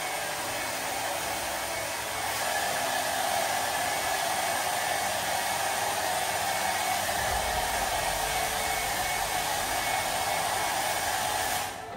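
Handheld hair dryer blowing steadily, switched off just before the end.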